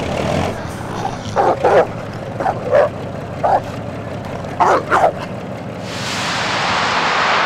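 A dog barking and yipping: about eight short barks in uneven bursts. Near the end a loud rushing noise swells in.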